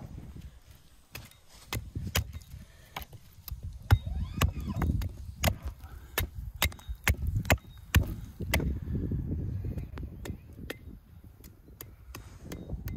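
Hatchet striking wood again and again in quick, irregular blows: a stick being hewn to a point on a chopping stump, then a stake knocked into the ground with the back of the hatchet.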